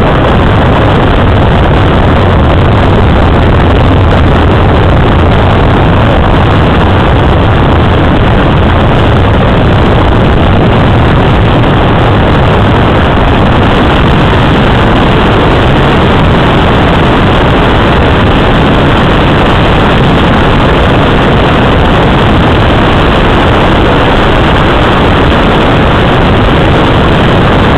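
Loud, steady rush of air around a Let L-33 Solo glider in flight, with a low drone underneath that is strongest in the first dozen seconds.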